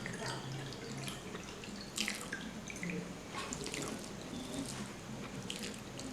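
Close-up wet eating sounds of rice with fish curry: irregular moist smacks, clicks and chewing, a few louder smacks standing out.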